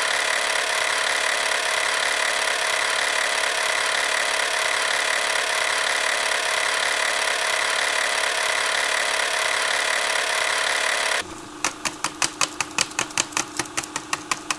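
Steady mechanical whirring hiss that cuts off suddenly about eleven seconds in, followed by a regular clicking, about four or five clicks a second.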